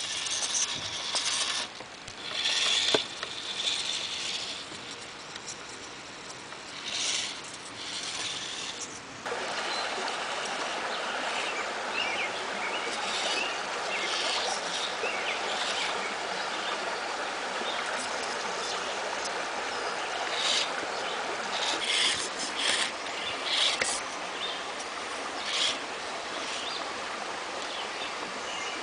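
Creek water running steadily, a constant rushing hiss that grows fuller about nine seconds in, with short scraping and clicking noises scattered over it.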